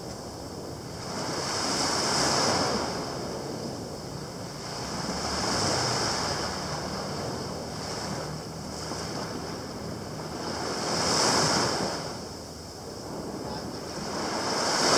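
Small sea waves breaking and washing up a coarse sand shore. The surf swells and fades four times, a few seconds apart.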